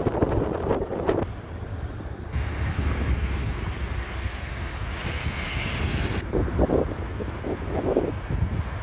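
Wind buffeting the microphone over a steady low rumble, with stronger gusts at the start and again about six and a half seconds in.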